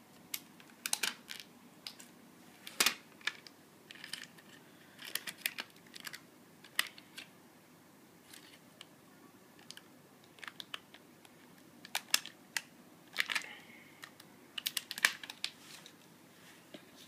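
Scattered small clicks and taps, some in quick clusters, with light rustling, from a Samsung Galaxy S4 smartphone's plastic body being handled.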